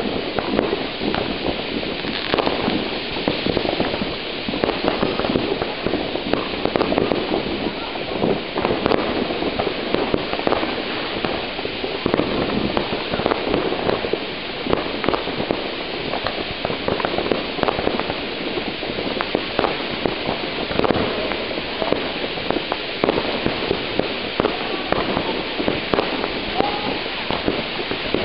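Ground fountain firework spraying sparks with a steady hiss, shot through with many sharp crackles and pops from firecrackers going off all around.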